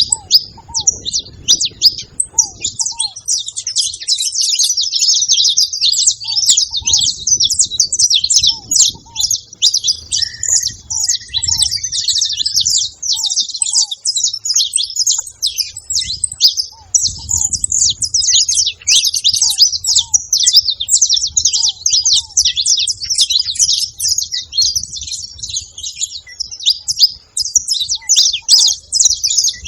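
A flock of saffron finches chirping without a break, a dense overlapping chatter of many high, quick notes. Faint, lower, short calls from another bird recur now and then.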